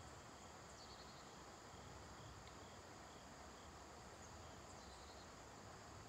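Near silence: faint outdoor background hiss with a faint insect chirping about twice a second, and two brief higher chirps, one about a second in and one near the end.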